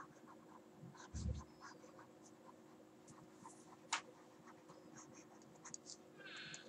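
Faint ticks and scratches of a stylus writing on a tablet screen, with a low thump about a second in and a sharp click about four seconds in.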